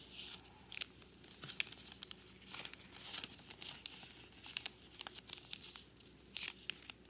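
A sheet of paper being folded and creased by hand into a paper fortune teller, rustling and crinkling with irregular crisp crackles as the folds are pressed down.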